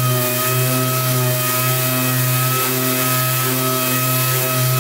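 Air-powered random orbital sander running steadily on a freshly clear-coated carbon-fibre side panel, sanding the gloss down to matte: a constant hum and whine over an even hiss.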